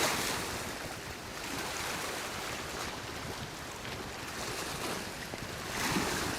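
Wind blowing over the microphone with waves on the lake water, a steady rush that swells at the start and again near the end.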